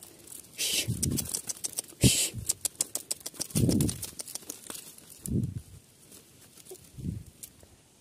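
Woven bamboo bird house creaking and crackling as it is carried by hand, with a dense run of quick clicks and several soft, low sounds in between.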